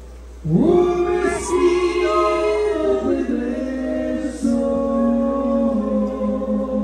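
Live music starts about half a second in: several long held notes sound together as a chord, the lowest sliding up at the entry, then moving to a new chord about four and a half seconds in.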